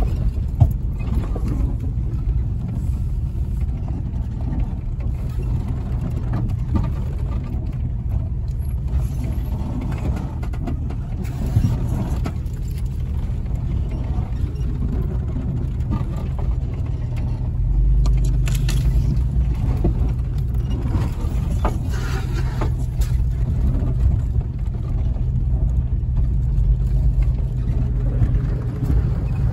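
A vehicle driving along a rough dirt trail: a steady low rumble from the engine and tyres, with scattered knocks and rattles as it goes over bumps. The rumble grows louder about eighteen seconds in.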